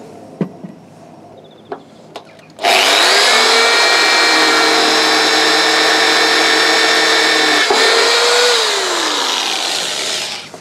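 Corded electric drill spinning up and running steadily as it drills a pilot hole into the narrowboat's steel bow deck, then winding down with a falling whine near the end. A few light clicks come before it starts.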